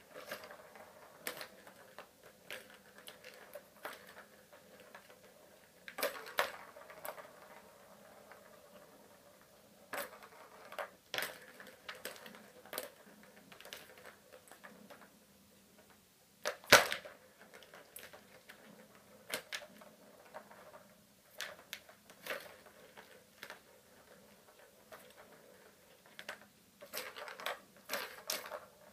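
Plastic balls clicking and rattling around the tracks of a three-tier plastic ball-track cat toy as a kitten bats at them: irregular clicks and knocks, the loudest a little past halfway and a quick run of them near the end.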